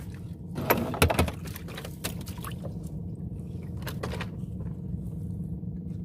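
Water splashing and a net rustling as hands work a tilapia out of a fish trap alongside a boat, a few short splashes with the loudest about a second in, over a steady low hum.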